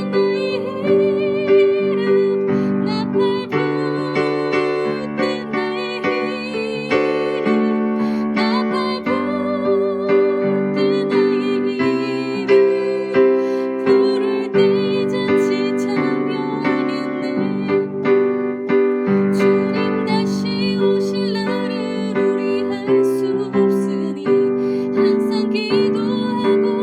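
Electric keyboard playing a hymn tune: piano-like notes changing about every second over a held chord.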